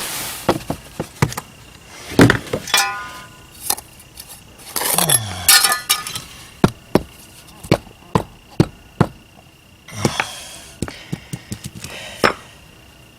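Rubber mallet pounding concrete pavers down into a sand-and-Portland-cement base: a string of irregular knocks, some with a short clinking ring.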